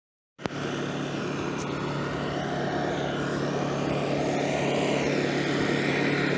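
A steady mechanical drone with a constant low hum, starting abruptly about half a second in and slowly growing louder.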